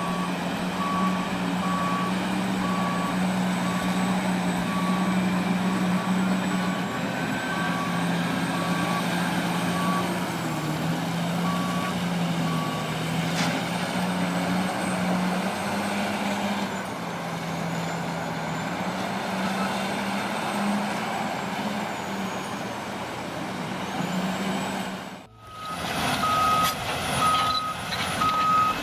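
Diesel engines of heavy mining loading equipment (wheel loaders and a dump truck) running steadily, with a reversing alarm beeping about once a second through the first half. After a sudden break near the end, a higher-pitched reversing alarm beeps faster.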